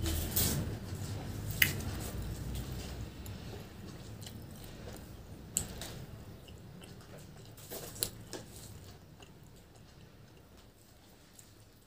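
A person chewing a mouthful of puri soaked in curry, with wet squishy mouth sounds and a few sharp clicks. It grows steadily fainter toward the end.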